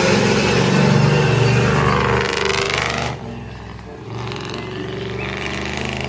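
Engine of a monster-truck school bus on giant tyres running as it drives, louder for about the first three seconds, then dropping suddenly to a lower, steady level.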